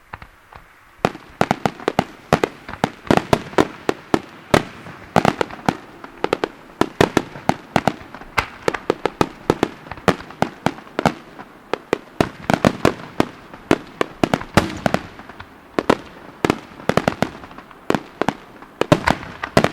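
Aerial firework shells bursting in rapid succession, several sharp bangs a second with echoing rumble between them, starting about a second in.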